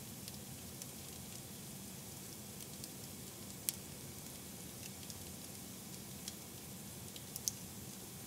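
Log fire in a fireplace crackling: a low steady rush of flame with scattered small pops, two sharper snaps about three and a half and seven and a half seconds in.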